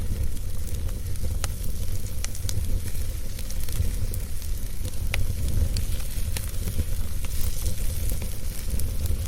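Fireplace crackling: scattered sharp pops, roughly one a second, over a steady low rumble and a soft hiss.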